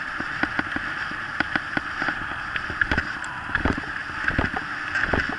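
Kick scooter's knobby tyre rolling fast over a gravel track with a steady hiss, its frame and handlebar rattling and clicking over loose stones, with a few heavier knocks from bumps in the second half.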